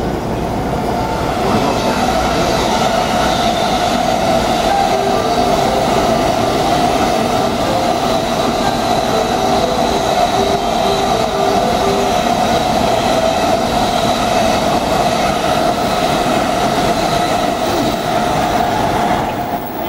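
Unrenovated E231-series electric train braking to a stop at a platform. Its VVVF inverter and traction motors give a steady whine, with short stepping tones partway through: the 'ghost inverter' sound these unrenovated cars are known for.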